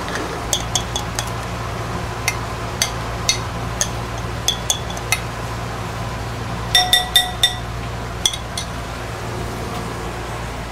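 A metal spoon clinking against a small white pot while cheddar is stirred and then spooned out onto fries in a glass bowl. The strikes are short and ringing, scattered for the first several seconds, with a quick run of four or five taps about seven seconds in. A steady low hum runs underneath.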